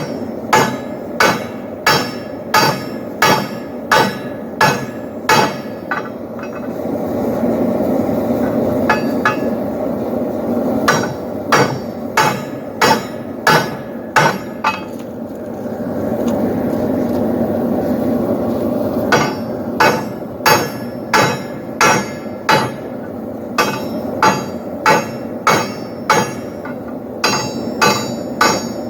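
Blacksmith's hammer striking steel on an anvil while forging a poleaxe head: sharp, evenly spaced blows at about one and a half a second, in runs of several seconds with pauses between. A steady rushing noise fills the pauses.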